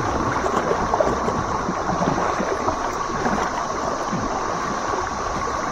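Steady wash of river water splashing and moving around a kayak, with many small splashes throughout.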